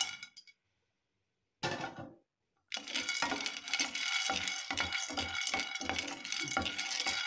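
Dry white chickpeas rattling and scraping in a granite-coated frying pan as a spatula stirs them for dry-roasting. A short clatter comes about two seconds in, then steady stirring at about two to three strokes a second.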